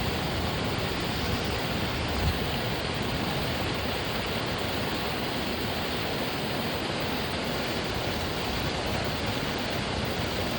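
Steady, even rushing noise with no distinct tones, and a soft low thump about two seconds in.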